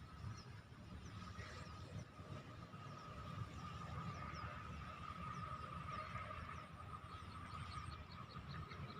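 Rice-field ambience: small birds chirping in short, repeated high notes over a steady high-pitched drone, with a low rumble underneath. The chirps come quicker near the end.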